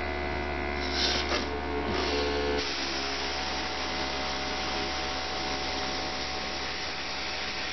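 Small airbrush compressor humming steadily while a dual-action airbrush sprays paint: a couple of short puffs of hiss, then about two and a half seconds in the trigger is pulled back and a steady hiss of air and paint spray starts and holds.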